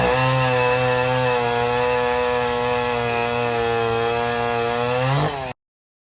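Vintage two-stroke chainsaw cutting wood, its engine running steadily under load, then revving up sharply near the end before the sound cuts off abruptly.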